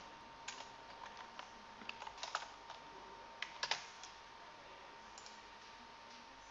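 Faint computer keyboard typing: a scattered run of keystrokes that stops about four seconds in, over a faint steady hum.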